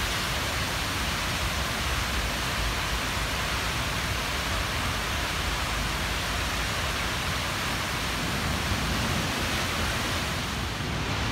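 Heavy rain pouring down: a steady, dense hiss with a low rumble underneath.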